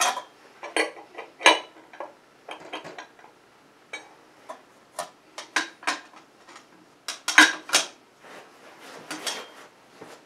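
Wrenches and a cheater bar clinking and clanking against the metal booster and sonotrode of an ultrasonic transducer as they are fitted on, in irregular sharp knocks. The loudest clanks come about a second and a half in and again around seven and a half seconds in.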